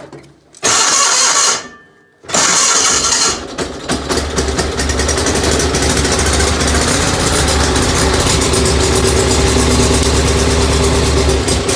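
Gravely 817 garden tractor engine being cranked: a short burst of cranking, a brief pause, then a longer crank that catches about four seconds in. The engine then runs steadily, starting despite the owner's fear that he had flooded it.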